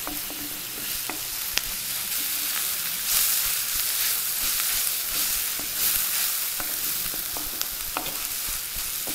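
Onions, tomato pieces and ginger-garlic paste sizzling as they fry in oil in an earthen clay pot, a steady hiss, while a spatula stirs them and scrapes the pot, giving a few sharp clicks.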